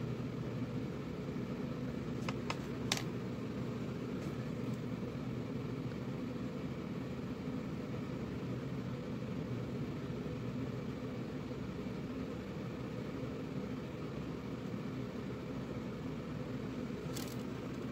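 Steady fan-like hum of room noise, with a few faint clicks about two to three seconds in and again near the end.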